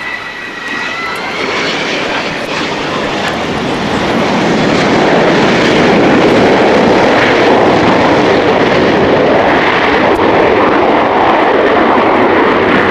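Jet aircraft engines: a high turbine whine at first, then a loud rushing engine noise that builds over the first few seconds and holds steady at full power for a takeoff.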